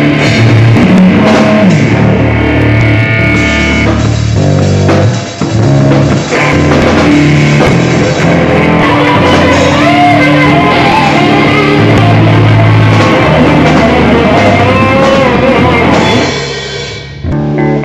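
Loud rock music with guitar and a drum kit; it drops away briefly near the end before coming back.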